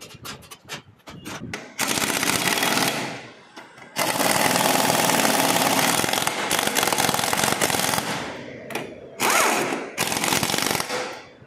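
Impact wrench hammering on bolts at the rear of an Aprilia scooter in three bursts, the middle one the longest, after a few sharp clicks and taps at the start.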